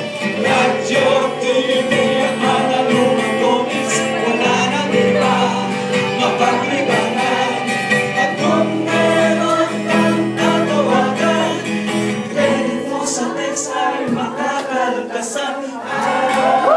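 A song playing: singing voices over sustained instrumental chords.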